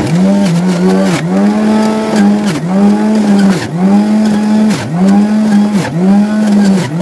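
Electric juicer motor running loud as it juices carrot, beetroot, apple, amla and turmeric. It starts up suddenly, with a steady whine whose pitch dips briefly about once a second.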